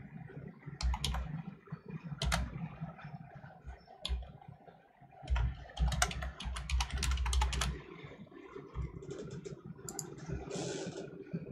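Typing on a computer keyboard in short bursts of keystrokes, with a fast run of keys about halfway through.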